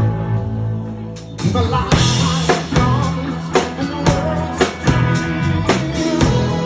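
Live rock band with male lead vocals, drum kit and guitar. A held chord dies down for about a second and a half, then the drums come back in on a steady beat of about two hits a second under the singing.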